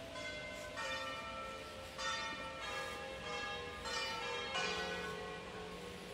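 Church bells ringing, several bells struck in turn roughly once a second, their notes overlapping and ringing on. The ringing fades out near the end.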